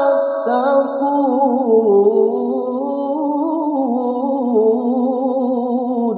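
A man's voice in melodic Qur'an recitation (tilawah), drawing out the verse ending 'tattaqun' as one long, low-pitched, ornamented note whose pitch wavers and curls up and down.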